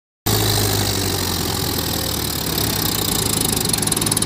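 Diesel tractor engine idling steadily, growing a little louder near the end.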